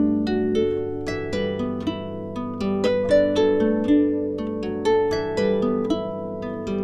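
Background music: a melody of quickly repeated plucked notes that ring and fade, over a steady low drone.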